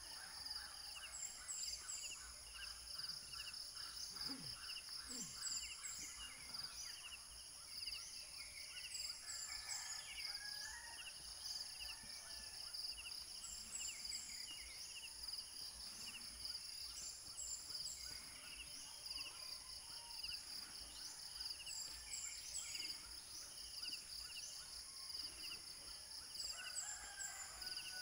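Outdoor rural ambience: insects keep up a steady, high-pitched pulsing drone. Birds call at intervals over it, short repeated chirps with some longer calls.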